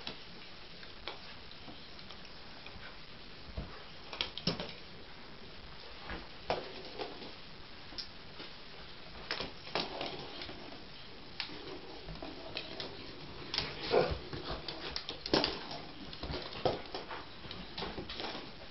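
A dog playing with a small ball on a rug and wooden floor: scattered knocks, taps and scuffles of the ball and the dog's paws, coming thicker and louder in the second half.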